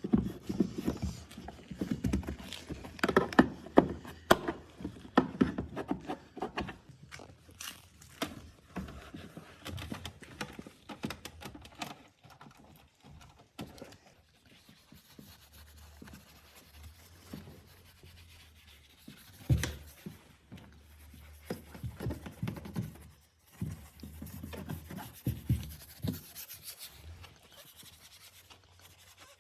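Hand-cleaning of car interior surfaces: rubbing and scrubbing with irregular taps and knocks from handling tools and trim, busiest in the first dozen seconds, then quieter, with a sharper knock about twenty seconds in.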